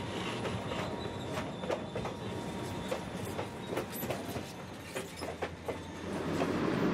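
Ontario Northland passenger train cars rolling past close by: a steady rumble of wheels on the rails with many irregular clicks and knocks from the wheels and running gear.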